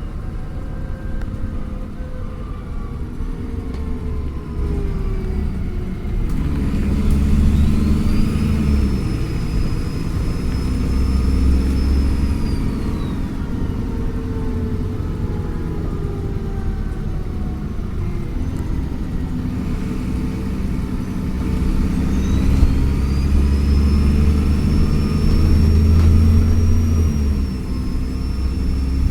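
Diesel engine of a Dennis Trident Enviro400 double-decker bus pulling hard at full throttle twice, each time with a high turbo whistle that rises and holds. The first whistle falls away a little past the middle; the second is still holding near the end.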